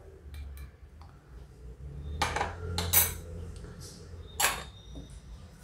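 Steel kitchen utensils clinking and clattering: a handful of sharp metal knocks, the loudest about three seconds in and another near the end.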